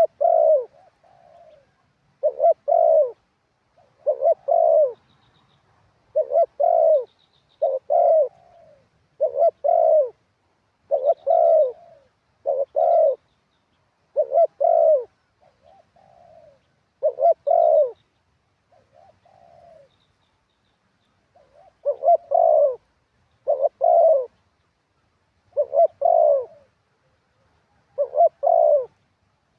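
Spotted dove cooing over and over, short phrases of two or three low coos repeating about every two seconds, with some softer coos between.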